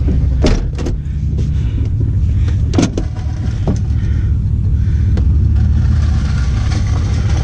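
Vehicle engine running steadily with a low rumble, with a few sharp clanks and knocks in the first three seconds.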